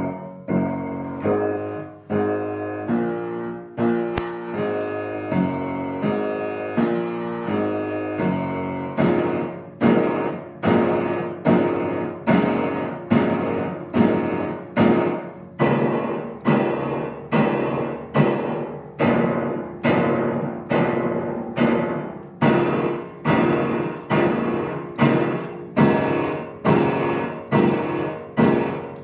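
Solo piano playing a simple original piece. In the first nine seconds or so, shorter notes run over held chords; after that the notes or chords are struck on a steady beat of about one and a half a second, each one dying away.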